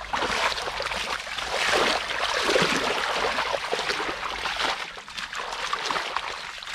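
Shallow muddy water sloshing and splashing, a continuous irregular patter of small splashes, fading a little near the end.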